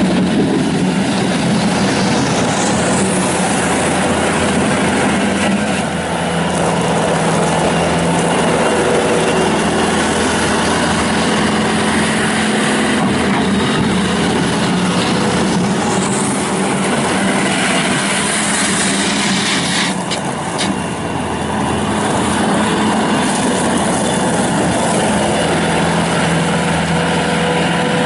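Bobcat S300 skid steer loader's Kubota V3300 turbo diesel running steadily as the machine is driven and worked, with a high whine that rises twice, about three seconds in and again near the middle, and a brief drop in engine sound about twenty seconds in.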